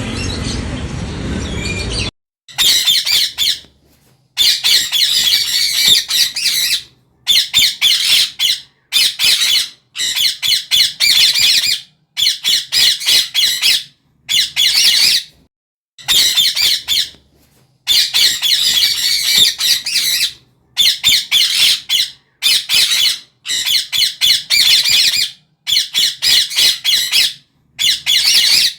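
A parrot squawking: harsh, high calls repeated in rapid clusters, each about a second long with short silent breaks between them. A steady noise fills the first two seconds before the calls begin.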